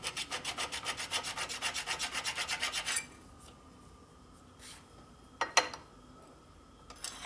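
A hand file scraping back and forth across a metal engine gasket surface in quick, even strokes, about six a second, to knock down high spots. The filing stops after about three seconds; a couple of sharp metal clicks follow, then the strokes start again near the end.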